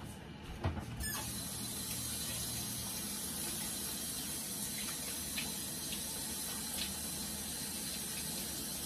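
Kitchen tap running, water pouring steadily into the sink; it is turned on suddenly about a second in.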